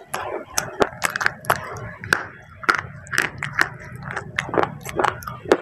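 Close-miked crunching and chewing of clay pot pieces: irregular sharp crackles, several a second.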